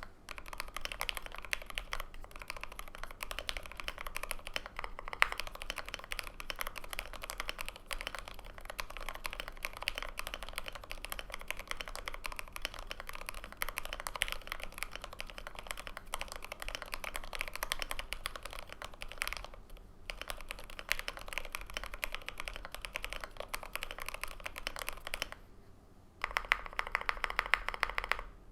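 Steady typing on a GMMK Pro mechanical keyboard with lubed Everglide Aqua King V3 linear switches, a polycarbonate plate and OSA keycaps: fast, continuous keystrokes. There is a brief pause near the end, then a louder, denser run of keystrokes.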